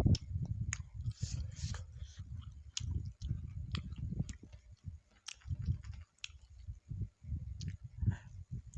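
Close-miked chewing of fried meatball skewers (bakso goreng): irregular soft jaw thuds with scattered sharp wet mouth clicks.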